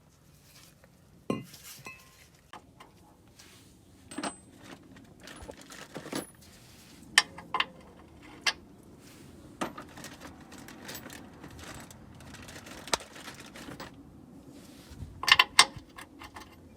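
Metal hand tools clinking and clattering as they are handled: irregular single sharp clinks, with a quick cluster of louder ones near the end.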